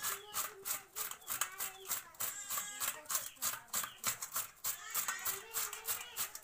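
Raw potato rubbed on a stainless-steel hand grater over a steel plate: quick rasping strokes, roughly three a second.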